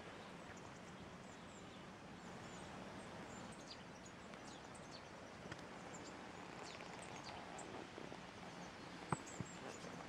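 Small birds giving short, faint, high chirps now and then over steady faint outdoor background noise. A couple of sharp clicks come near the end.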